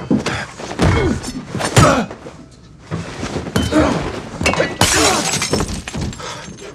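Fight sound effects: a rapid run of blows and thuds with glass breaking, and a loud shattering crash about five seconds in.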